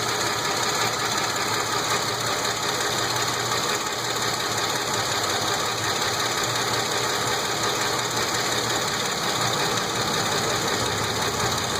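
Nissan Xterra engine idling roughly at about 650 rpm, with a ticking in the running; the rough idle follows a cleared misfire code. A further odd noise that the owner is trying to identify may be mixed in.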